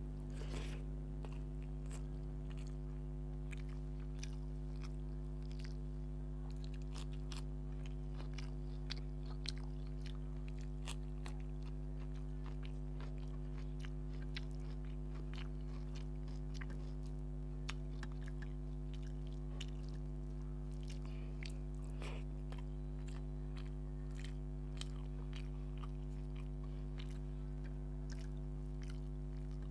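Close-miked chewing of a person eating rice, fish curry and cabbage salad by hand: many small wet mouth clicks and crunches, over a steady low hum.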